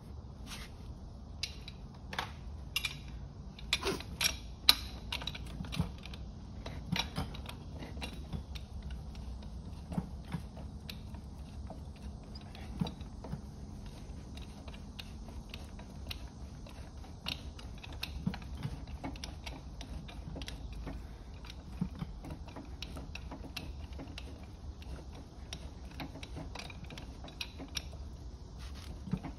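Irregular metallic clicks and clinks as a large wrench is worked on the pinion nut of a Ford Model A differential's pinion shaft to take the nut off, over a low steady hum.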